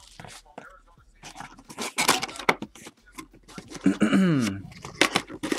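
Cardboard trading-card hobby box being handled and its lid flipped open: a run of crackles and taps, with a brief falling tone about four seconds in.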